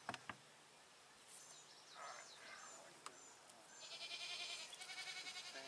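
A goat bleating faintly: one wavering, trembling call lasting about two seconds in the second half. Before it, only a few soft clicks.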